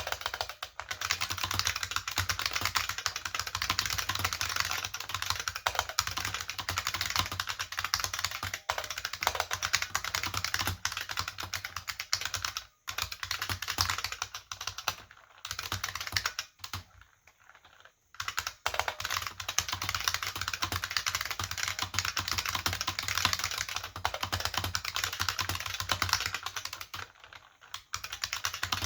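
IBM 5155 keyboard with capacitive buckling-spring switches being typed on rapidly and continuously. There is a pause of about a second just past the middle and a brief break near the end.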